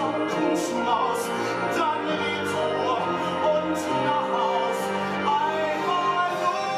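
A man singing a musical-theatre song with an orchestra accompanying him.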